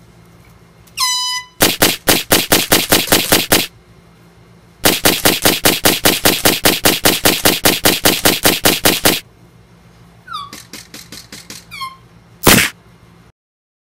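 Rapid automatic gunfire, most likely an added sound effect, in two long bursts of evenly spaced shots at about five a second. A few quieter shots with short falling whines follow, then one last loud single shot near the end.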